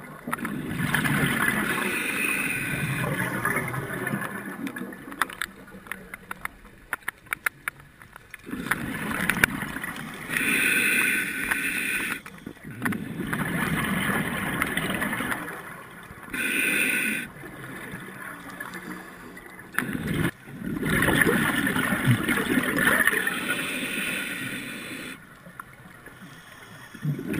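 Scuba regulator breathing underwater: a short hiss on each inhale, then a longer rush of bubbles on each exhale, repeating in a slow cycle. A patch of rapid clicking comes about a quarter of the way in.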